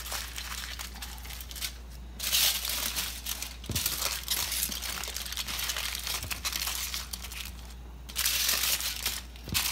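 Aluminum foil crinkling and crumpling as hands fold and crimp it around seasoned ribs. It comes in uneven bursts, loudest about two seconds in and again near the end.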